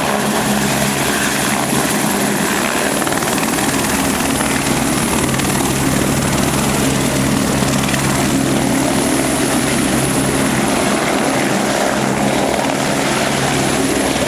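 Helicopter turbine engines and rotors running steadily on a rooftop helipad: a loud, even whine and rotor noise with steady low tones as the police helicopters spin up.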